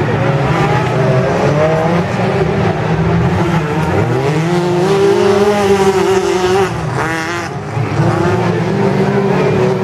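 Autocross race cars running hard on a dirt track, several engines overlapping and revving up and down through the gears. About four seconds in, one engine climbs steeply in pitch, and around seven seconds a brief wavering high whine cuts through.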